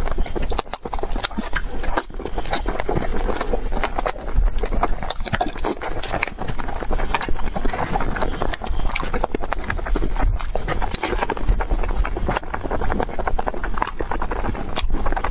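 A sugar glider eating a strawberry, close to the microphone: a dense, continuous run of quick clicks and smacks of chewing.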